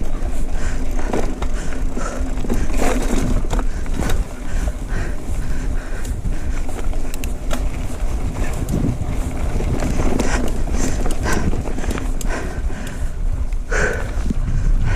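Mountain bike rolling along a dirt trail: a steady low rumble of tyres on the ground with frequent small clicks and rattles from the bike, and one brief higher sound near the end.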